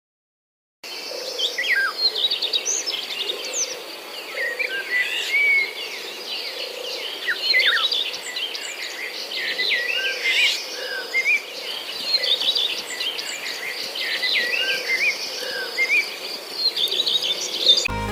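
Many small birds chirping and calling at once, a busy chorus of short overlapping chirps and quick pitch slides over a steady high hiss, starting about a second in.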